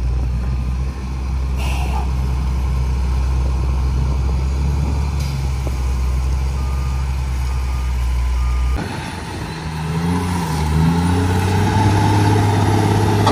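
Heavy diesel truck engines working under load as a military 5-ton truck tows a stuck fire truck free. A steady low rumble changes abruptly about nine seconds in, after which the engine pitch rises and falls as the trucks pull.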